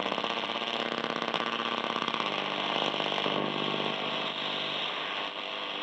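Grundig Satellit 650 International receiver being tuned across the medium-wave band, its speaker giving a steady buzz of interference between stations with a fast, even pulsing. The pitch of the buzz changes about two seconds in.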